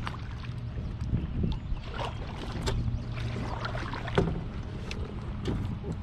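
Kayak paddle strokes splashing in the water, with scattered knocks and clicks against the kayak hull over a low steady rumble. The loudest knock comes about four seconds in.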